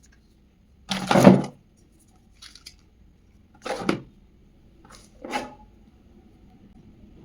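Handling noises from the phone's box and packaging: several short rustles and knocks, the loudest about a second in, with smaller ones after it.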